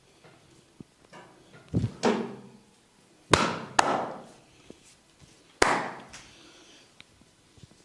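Sharp percussive strikes from a barber's hands on a client's head and neck during an Indian-style head massage: about five loud smacks or cracks, two close together about two seconds in, two more around three and a half seconds, one a little before six seconds, with light tapping between.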